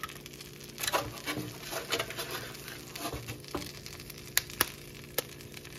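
Egg frying in melted butter in a nonstick pan: a soft, steady sizzle and crackle, with a few sharp clicks about four and a half to five seconds in.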